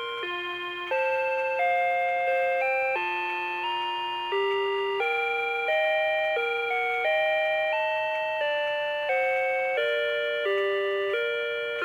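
Rhythm Watch 'Week Time' melody alarm clock playing its built-in electronic chime melody: a slow tune in chords, each note struck and then fading away.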